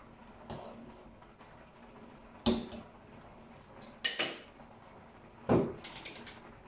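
Dishes and utensils clattering on a kitchen counter: four separate knocks and clinks, the loudest about two and a half and five and a half seconds in.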